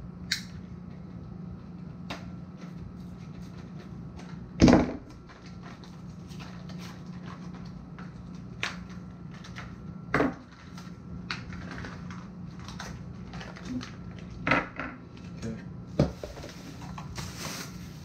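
Ultra quiet oil-free air compressor running with a low, steady hum, while small metal fittings are handled with scattered clinks and knocks, the loudest about five seconds in. A short hiss comes near the end.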